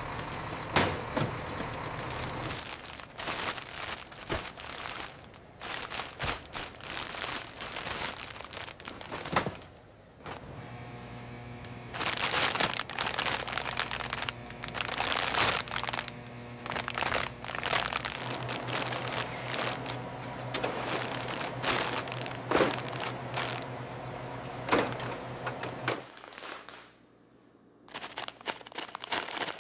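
Factory machinery running with a steady low hum under frequent clattering knocks and clicks. The hum drops out briefly near a third of the way in and again near the end.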